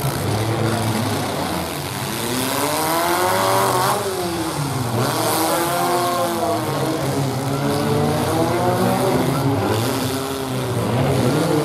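Engines of modified compact demolition-derby trucks revving hard and dropping back again and again, their pitch rising and falling every couple of seconds.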